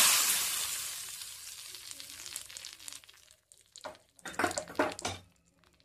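Hot oil tempering with mustard seeds and dried red chillies hitting a moong dal sambar: a loud sizzle that fades away over about three seconds. A few short knocks follow about four seconds in.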